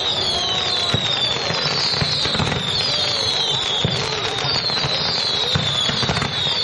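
Fireworks going off in a rapid barrage: overlapping high whistles, each falling in pitch, come about two a second over steady crackling and popping.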